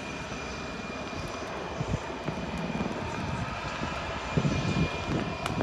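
HAL Light Combat Helicopter in flight: steady rotor and Shakti turboshaft engine noise with a thin steady high whine. The sound grows a little louder, with some low pulsing, from about four seconds in.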